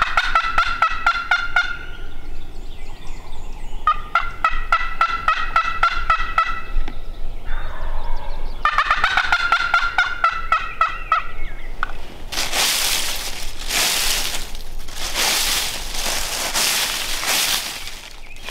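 Wild turkey gobbling: three rattling gobbles, each a quick run of pulses lasting two to three seconds. From about two-thirds of the way through come several loud bursts of rushing noise.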